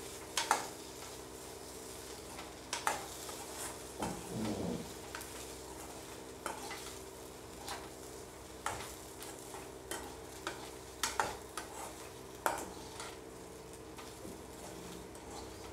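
A steel ladle stirs and scrapes sliced shallots, dried red chillies and curry leaves frying in oil in an aluminium kadai, with irregular clinks and scrapes of metal on the pan about once a second over a faint sizzle.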